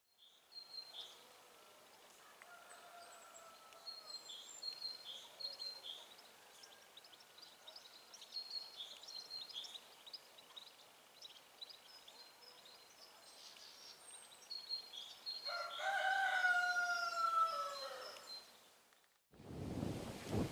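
Small birds chirping and twittering throughout; about three-quarters of the way through a rooster crows once, a long call falling slightly in pitch, the loudest sound here.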